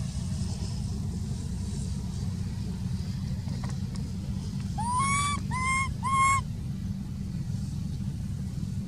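Baby macaque crying: three short, loud, high calls in quick succession about halfway through, each rising then holding its pitch, over a steady low rumble.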